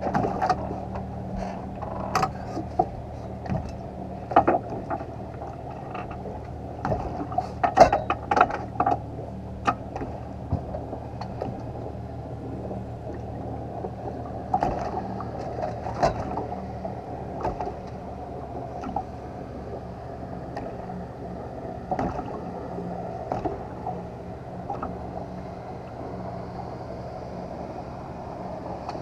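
Scattered knocks, clunks and clicks of fishing gear being handled in a small boat, over a steady low hum. The knocks are busiest in the first ten seconds, with more around the middle and a few near the end.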